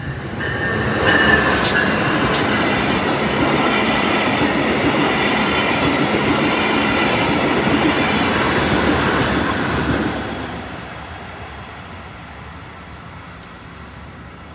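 Brightline passenger train passing close by at speed: a dense rush of wheel and rail noise that comes up about a second in, stays loud for about nine seconds with two sharp clacks near the start, then fades as the train moves away.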